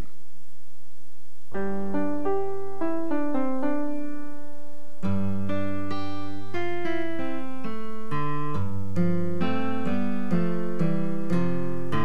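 Instrumental background music: a melody of pitched notes over long held bass notes. It enters about a second and a half in and grows fuller at around five seconds.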